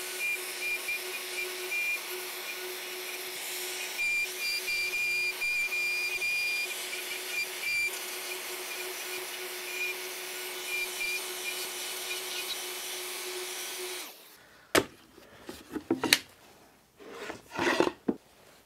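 Festool plunge router with a dust extractor hooked up, running steadily with a high whine while routing a recess along a template; it stops about 14 seconds in. A few sharp knocks follow.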